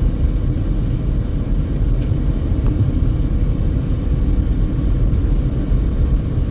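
Steady low rumble of a car driving at highway speed: tyre and engine noise, unchanging throughout.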